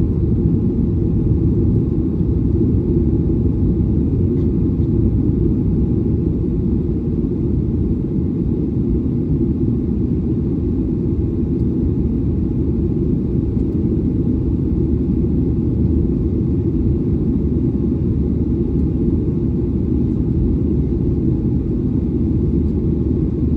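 Steady low rumble of an airliner's jet engines and rushing air, heard from inside the passenger cabin.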